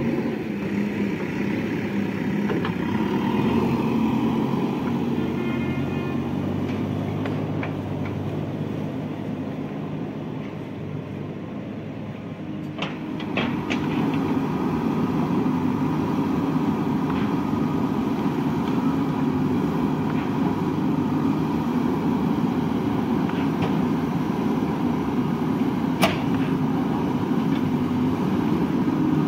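JCB 3DX backhoe loader's diesel engine running steadily at work. The engine grows louder about halfway through, around the time of a few metallic clanks, and there is one sharp knock near the end.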